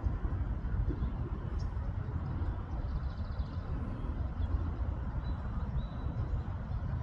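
Steady low outdoor rumble, with a few faint, short high chirps near the middle.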